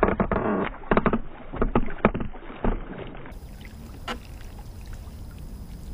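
Chain pickerel thrashing at the surface beside a kayak: a run of splashes over the first three seconds, then quieter, with a single knock about four seconds in.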